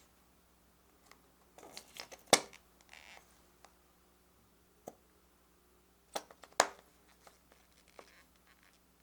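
Sharp clicks and taps from handling the plastic parts of a DIY candy kit: a cluster of taps about two seconds in and two more sharp clicks just after six seconds, with a few lighter ticks between.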